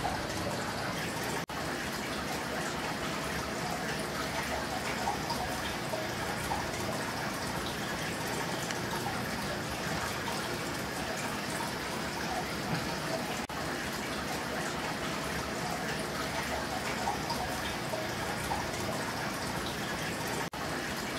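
Aquarium water trickling and bubbling steadily, with small drips throughout. It cuts out for an instant three times.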